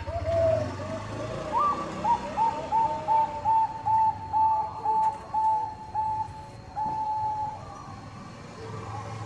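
Zebra dove (Bangkok-bred perkutut) cooing: a few falling notes, then one rising note and a quick run of short, evenly spaced coos at roughly two to three a second, ending in one longer held coo. A low steady hum lies underneath.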